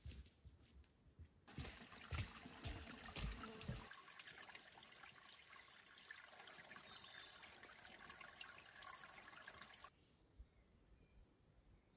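Faint trickle of a shallow stream running over sand and sticks. It starts about a second and a half in and cuts off suddenly near the end.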